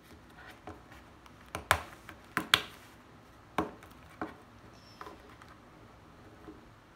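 A small cardboard toy blind box being handled on a tabletop: a handful of sharp taps and clicks from the box and fingernails, the loudest about two seconds in.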